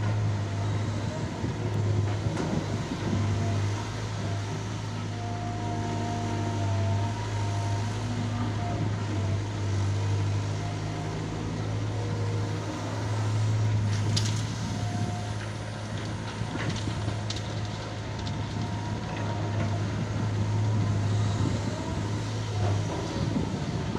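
Heavy diesel engine of construction machinery running steadily with a deep hum, with a few short sharp knocks a little past halfway.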